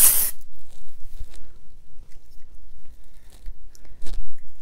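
A short hiss of aerosol texturizing hairspray that cuts off about a third of a second in, then crunchy rustling of fingers working through hair and brushing against a clip-on lapel microphone, with a few short knocks.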